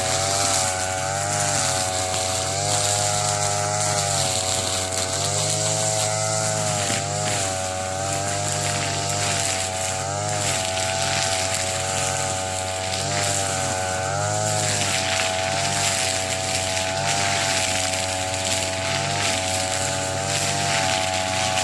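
Two-stroke brush cutter running at high speed while cutting thick grass, its engine pitch dipping briefly and recovering every second or two as the cutting head bogs under load.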